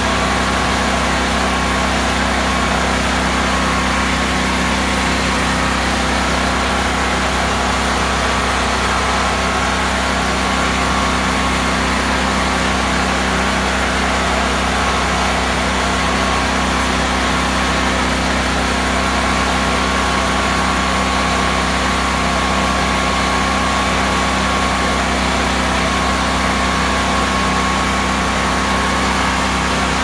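An engine idling steadily, an unchanging low hum with no revving.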